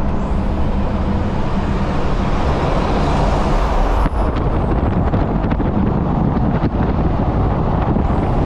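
Seat Ibiza 6L 1.9 TDI diesel under power, its exhaust silencers removed so it runs through a single straight pipe, giving a loud, steady exhaust note that echoes off tunnel walls. Mixed with road and wind noise from the cars.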